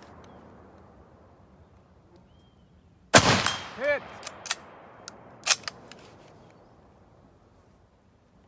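A single shot from a Lee-Enfield No. 4 .303 rifle about three seconds in, its report echoing and fading away over several seconds. Just under a second after the shot a voice calls out "Hit!", followed by a few sharp metallic clicks.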